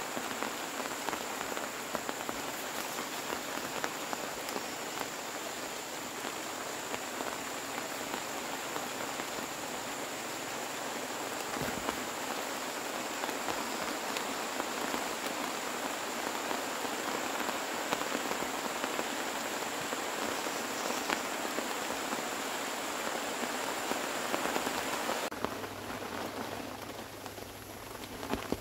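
Steady rain falling, a dense even hiss of many drops. Near the end it cuts abruptly to a quieter hiss with a low steady hum.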